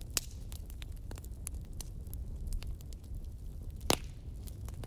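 Split firewood burning in a campfire, crackling with irregular sharp pops and one louder pop about four seconds in.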